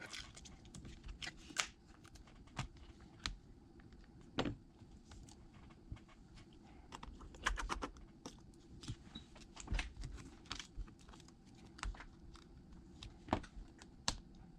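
Irregular light clicks and taps of small repair tools and parts being handled on an iPad on a workbench, a few sharper knocks among them.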